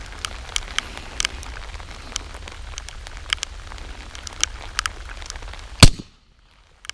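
Scattered sharp clicks and crackles, then one loud, sharp shot from a suppressed FNX-45 Tactical .45 ACP pistol with a SilencerCo Octane 45 can, near the end.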